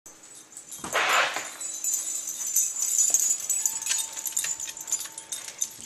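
Metal dog collar tags jingling and claws clicking on a hardwood floor as two terriers scramble about excitedly, with a short rush of noise about a second in.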